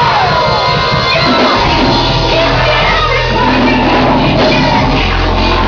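Loud music with singing and shouting voices over sustained bass notes that change every second or two.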